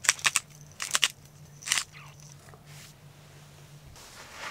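Salt shaker shaken over a bowl of clams in water, in a few quick sharp rattles over the first two seconds; soft rustling near the end.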